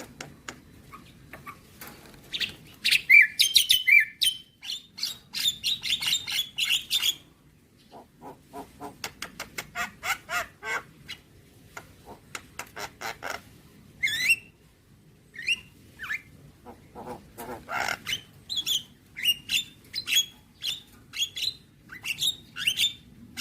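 Javan myna singing a long, varied song full of mimicked phrases: harsh chatter, rapid runs of sharp clicks and short whistled notes, broken by a couple of brief pauses.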